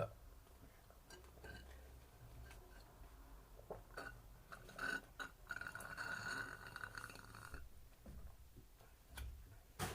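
A man's short burps, one right at the start and another near the end. Between them are faint clinks and a steady high tone lasting about two seconds.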